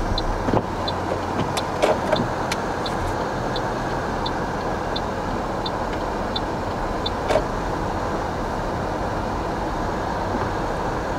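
Steady car engine and road noise heard from inside the cabin, with a turn-signal indicator ticking evenly about one and a half times a second until about seven seconds in. A few sharp clicks or knocks stand out near two seconds and again just after the ticking stops.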